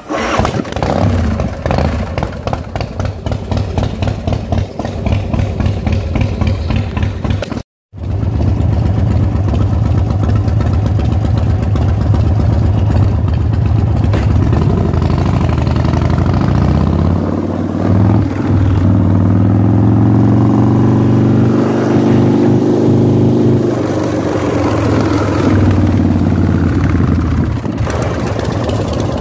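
2005 Big Dog Ridgeback's S&S 117 V-twin, cammed and fitted with a chrome dual SuperTrap exhaust, idling with a fast, even pulsing beat. After a brief gap of silence about eight seconds in it idles on, then the throttle is slowly opened so the pitch rises, held for a few seconds, and eased back down to idle near the end.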